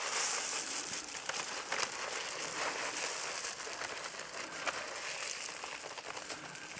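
Shelled corn pouring out of a tilted feed bag onto snow and dead leaves: a steady rushing hiss, strongest at the start and slowly fading, with crinkling from the bag.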